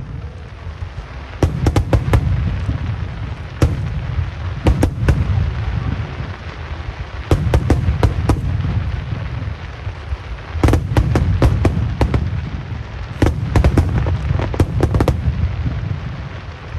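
Aerial fireworks shells bursting in volleys: deep booms with rapid sharp cracks, coming in about six clusters separated by short lulls.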